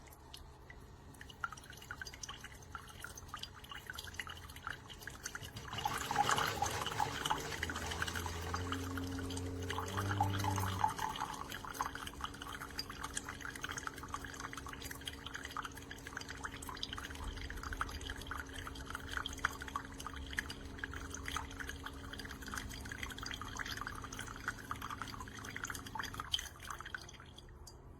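Keurig K-Mini single-serve coffee maker brewing: its pump hums steadily while coffee drips and trickles into the mug, and it stops shortly before the end.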